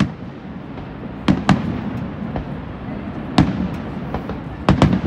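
Aerial fireworks shells bursting in sharp bangs: a pair about a second in, one near the middle and another pair near the end, over steady background noise.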